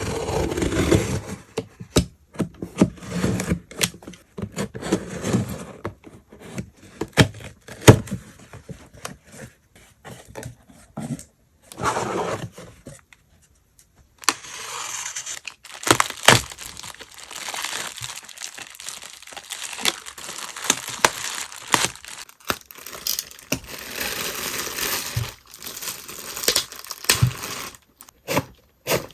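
Plastic packing materials crinkling and rustling in irregular bursts as goods are wrapped, with tearing and sharp clicks and taps, and a brief pause about halfway.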